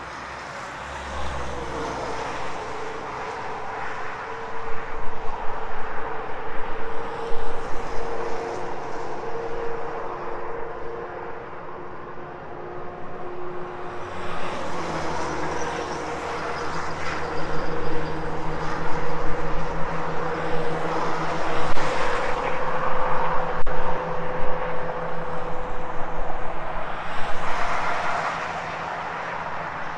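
Road traffic: cars and trucks driving past, tyre and engine noise swelling and fading as vehicles go by, in two loud waves with a lull between and a steady low engine hum through the second. The noise drops off near the end.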